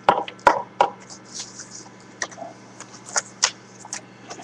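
A cardboard trading-card box being opened by hand: irregular light clicks, scrapes and paper rustles as the lid flap and the paper cover over the packs are moved.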